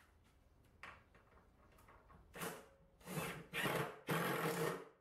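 Cordless drill driving a screw into wood in short trigger bursts: a brief one about two and a half seconds in, then three in quick succession, the last the longest.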